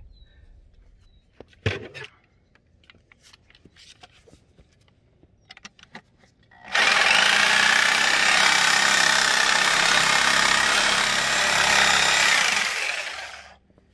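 A corded reciprocating saw with a 6-inch blade cutting through elk rib bones for about seven seconds, starting about halfway in, after a single faint knock. The bones are being cut to length for tomahawk steaks.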